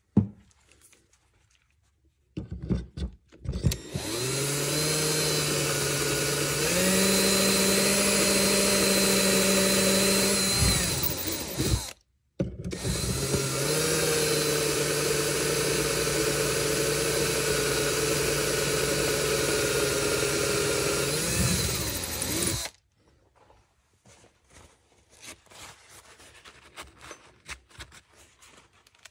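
Handheld power drill driving a number 31 carbide bit into a nitrided gas block and barrel through a drilling jig's bushing. A few short trigger blips lead into two long steady runs of about eight and ten seconds, with a brief stop between, and the motor's pitch steps up once partway through the first. Soft rubbing follows as the work is wiped with a cloth.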